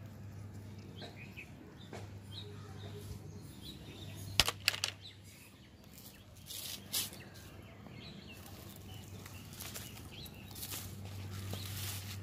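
Dry bark pieces rustling and scraping as they are handled and shifted, with a few sharp knocks about four and a half seconds in and another clatter near seven seconds. Faint short chirps and a steady low hum sit underneath.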